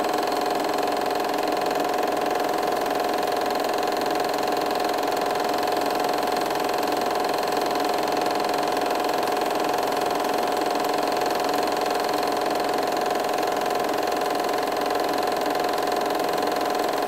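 Steady mechanical whirring with a constant hum, unchanging in loudness throughout.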